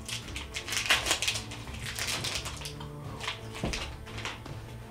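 Plastic Snickers wrapper crinkling as a candy bar is unwrapped by hand: a quick run of crackles for the first two and a half seconds, then a few scattered rustles.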